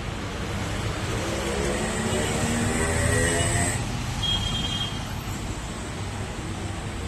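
Road traffic noise: a steady rumble as a motor vehicle passes, its engine note swelling and fading over a few seconds, with a brief high beep just after.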